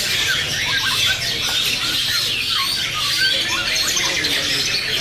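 Young long-tailed shrike (cendet) singing a fast, chattering run of short squawking notes, mixed with the chirping of many other songbirds.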